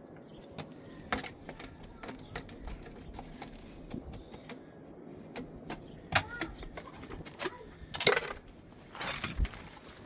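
Scattered light clicks and metallic clinks, with a few louder knocks about six and eight seconds in.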